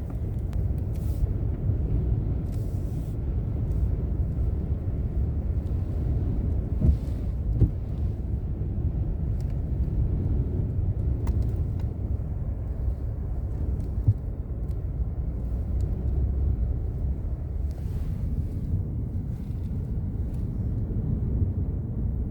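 Steady low rumble inside a truck's cab in a gale, the vehicle's running noise mixed with wind buffeting the truck. A few short thumps come through, about seven seconds in and again around fourteen seconds.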